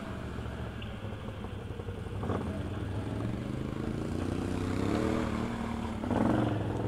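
Can-Am V-twin ATV engine running under way, revving up with a rising pitch between about three and five seconds in. A short knock about two seconds in.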